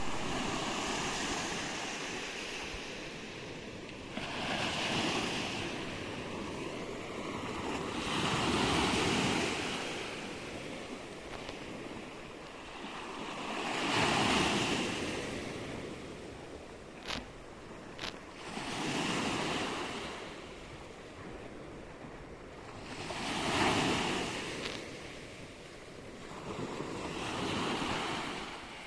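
Baltic Sea surf, waves washing in and swelling about every four to five seconds, with wind. Two short clicks a second apart just past the middle.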